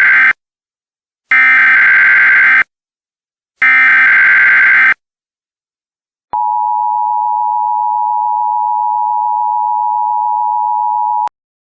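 Emergency Alert System SAME header: the end of one buzzy digital data burst and two more, each a little over a second long, then after a short pause a steady attention tone held for about five seconds and cut off sharply. It signals that an emergency alert message is about to be read.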